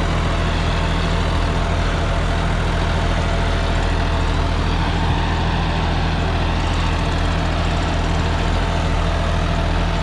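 John Deere 5405 tractor's diesel engine running steadily under load in second gear, driving a 10-foot rotavator that is tilling the soil.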